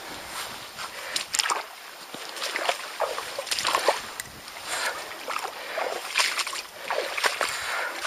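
Shallow seawater splashing and sloshing irregularly among seaweed around an inflatable kayak as it is moved by hand, several splashes a second.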